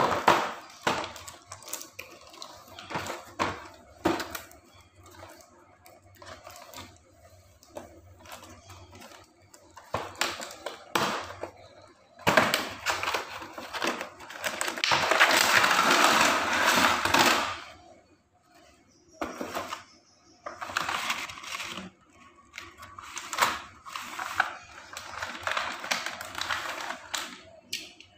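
Cardboard and styrofoam packaging of a toy train set being handled and opened: scattered clicks, knocks and scrapes, with a longer loud scraping rustle about halfway through and another weaker one later.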